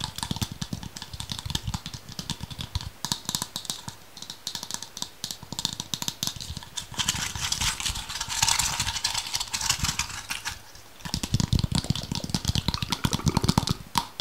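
Fast ASMR tapping and handling sounds: a dense run of rapid clicks and taps. There is a hissier, busier stretch from about seven to ten seconds in, a brief pause just before eleven seconds, and then more quick tapping.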